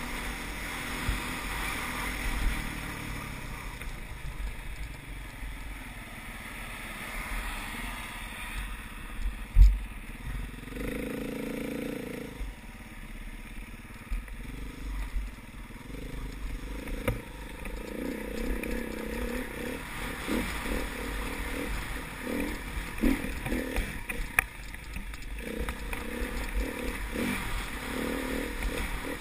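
Enduro dirt bike's engine running as it is ridden over a rough dirt and grass track, heard through a bike-mounted camera. Short knocks and clatter come from the bike over bumps, with a sharp knock about ten seconds in.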